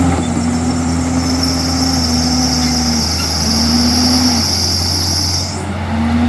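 Komatsu bulldozer's diesel engine running under load, its pitch dipping and recovering twice. A steady high-pitched whine joins about a second and a half in and cuts off near the end.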